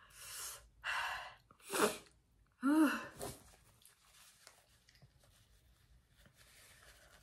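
A woman sneezing in a quick run of bursts over the first three seconds, the last one voiced and the loudest. Then comes soft rustling as she wipes her nose with a paper tissue.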